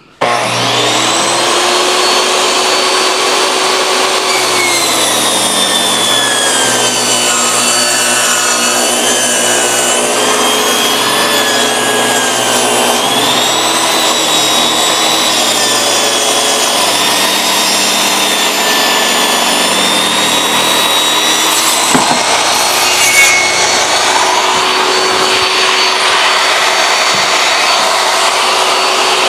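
Electric jobsite table saw starting up and ripping a rough-sawn pine board lengthwise. The motor's whine sinks in pitch as the blade takes the load a few seconds in, and rises again when the cut finishes, with a knock or two from the board. The saw then runs free.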